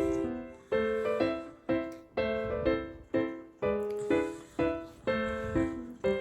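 Background music: a gentle piano-like keyboard melody, single notes struck about twice a second, each fading before the next.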